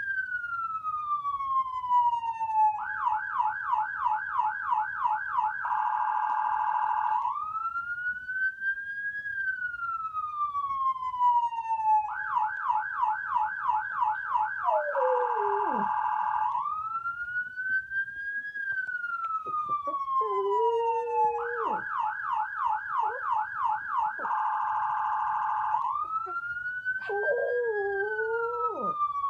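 Siren cycling through its tones over and over: a long falling wail, a fast warbling yelp, a steady stretch, then a rising sweep, about every nine seconds. A Pomeranian howls along with it three times in the second half.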